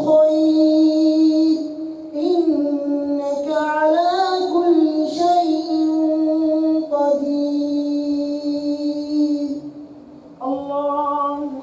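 A man's voice chanting Quranic recitation in the melodic, drawn-out tajweed style of a prayer leader, with long held notes that bend up and down and a few short breaths between phrases; a short final phrase comes near the end after a brief pause.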